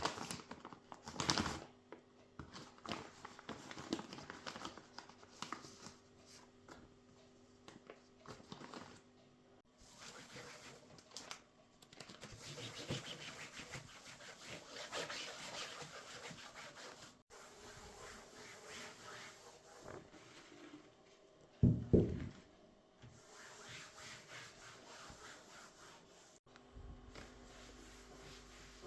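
Household handling sounds: objects rubbing and scratching against surfaces, with scattered small clicks and one louder thud about two thirds of the way through.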